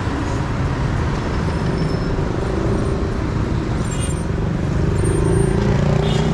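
Steady street traffic of motor scooters and cars passing close by, their engines humming, growing a little louder toward the end.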